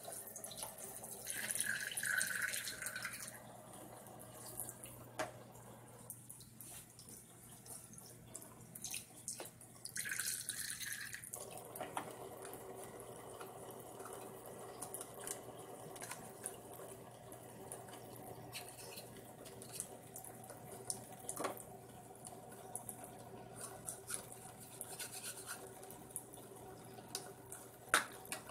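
Water running and splashing in a toy kitchen sink as plastic toy dishes are washed, with light clicks of the dishes knocking together. The water is louder for a couple of seconds near the start and again about ten seconds in.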